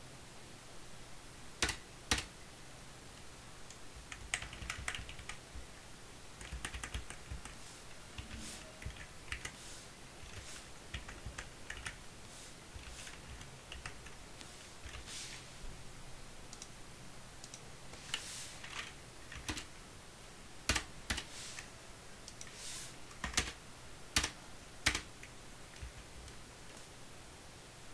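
Computer keyboard typing in uneven bursts with short pauses. Several louder single key clicks come near the end.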